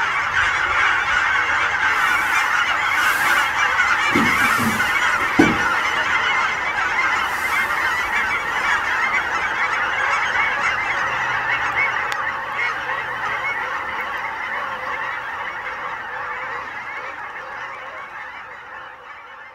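Dense, continuous chorus of honking from a huge flock of Canada geese coming in to land, hundreds of overlapping calls. A brief thump stands out about five seconds in, and the honking fades out over the last several seconds.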